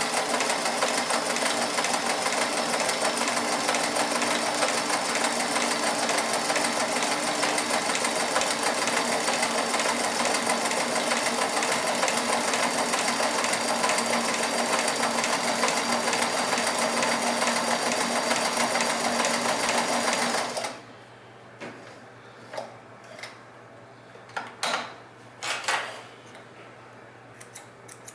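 Sears Kenmore 158-series all-metal sewing machine, with its 1.2 amp motor and two-belt drive, running steadily while sewing a back-and-forth stitch through two layers of marine vinyl. It stops suddenly about 20 seconds in, followed by a few light clicks.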